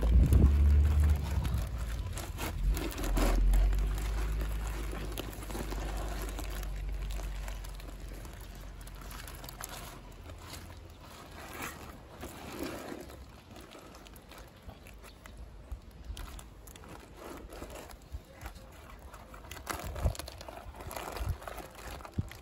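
A cloth sack of crushed tomatoes being squeezed and kneaded by hand over a metal bowl to strain the pulp for tomato paste: the wet cloth rustling and crumpling, with scattered soft squishes and clicks. A low wind rumble on the microphone is loudest over the first several seconds and fades out.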